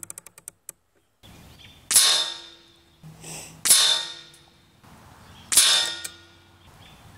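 A fast run of small clicks, a rifle scope turret being dialled. Then three sharp metallic clangs about two seconds apart, each ringing out for about a second: pellets striking the metal target trap.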